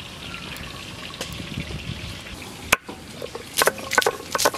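Garlic cloves being crushed with a stone roller on a stone grinding slab (shil-nora): a single knock just before three seconds in, then a quick run of sharp cracks and crunches from about three and a half seconds in. Before that, a low steady hiss.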